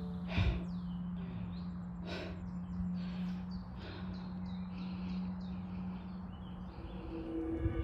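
Small songbirds chirping and singing, many short quick calls and falling notes, over a low steady hum, with a few soft knocks.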